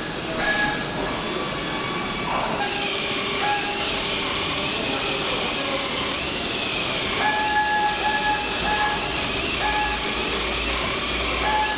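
Tyre-handling machine running with a steady hiss as a truck tyre turns on its spindle and blue plastic film is wound onto it. A whine comes and goes every second or so.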